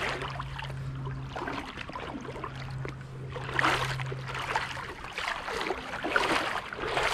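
Creek water running, with irregular rustling and scuffing over a steady low hum.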